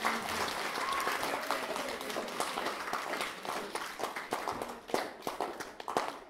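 Applause from a crowd of children and adults: dense, steady clapping that thins into more separate claps near the end and then dies away.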